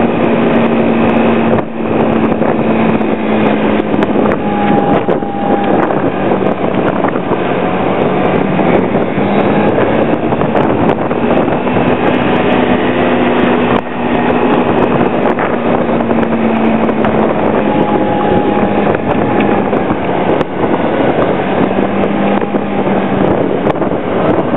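Small motor scooter engine running at a steady cruise, heard from the rider's seat, with wind rushing across the microphone.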